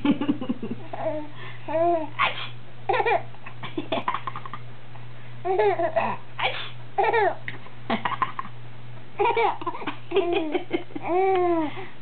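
A young baby laughing in repeated short bursts of giggles, each rising and falling in pitch, with pauses between them.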